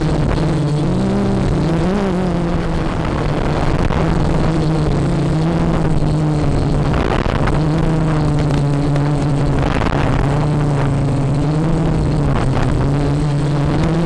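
Quadcopter's electric motors and propellers whirring, their pitch gliding up and down as the throttle shifts, over a rush of strong wind.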